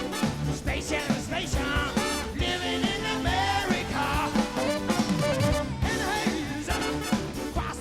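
Live soul band playing a song, with a lead singer's voice over the full band and drum kit.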